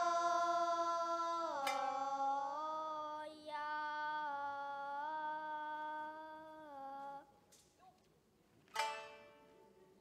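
Nagauta singing by young girls' voices holding one long drawn-out note that steps down in pitch twice, with shamisen plucks at its start. After the voice stops, a single shamisen stroke near the end rings and fades, closing the piece.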